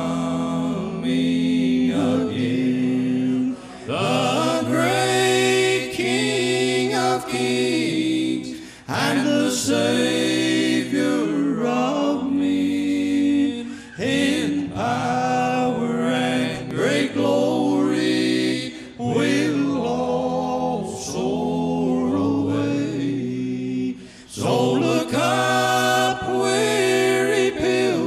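Male bluegrass gospel quartet singing in close harmony, with acoustic guitars strummed beneath the voices.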